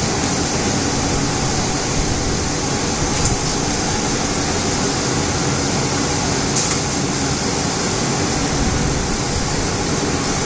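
Laser cutting machine running while its head cuts acrylic sheet: a steady rushing noise of its fans and air assist, with two brief high ticks about three and six and a half seconds in.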